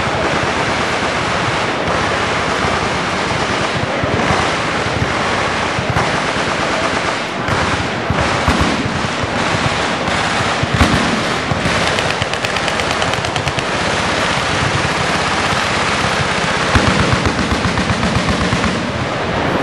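Many automatic weapons firing at once: a loud, unbroken din of overlapping machine-gun bursts and single shots.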